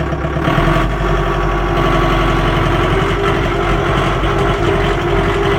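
Mahindra 2545 tractor's diesel engine running steadily, heard from inside the cab; its low note shifts about half a second in.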